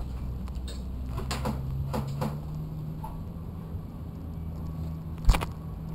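A few light clicks and knocks, then one loud sharp crack about five seconds in, over a steady low hum.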